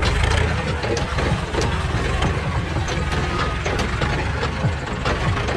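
Forklift engine running as the machine is driven over rough dirt, a steady low rumble with frequent rattles and knocks.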